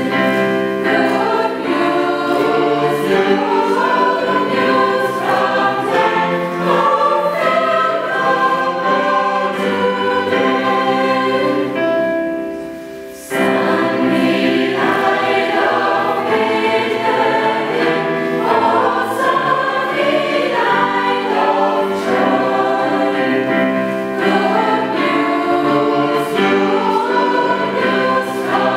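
Mixed choir of men and women singing in harmony. About twelve seconds in the voices die away briefly, then come back in together.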